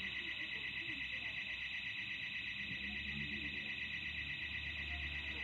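Burglar alarm sounding continuously: a high-pitched tone pulsing rapidly and evenly, about six or seven pulses a second.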